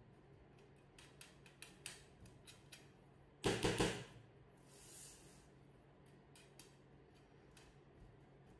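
Metal spoon clicking and scraping against a stainless steel cake ring while pressing down a crumbly biscuit base, with a louder clatter of several knocks about three and a half seconds in and a short scraping hiss just after.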